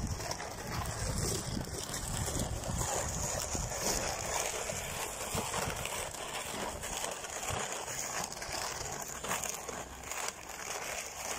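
Plastic sled being dragged over packed snow and ice, a steady scraping hiss, with footsteps crunching on the snowy road.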